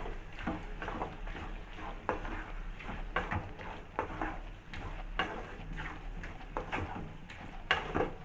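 A utensil stirring squid pieces through onion-tomato masala in a kadai, scraping and knocking irregularly against the pan, over a light sizzle of the frying.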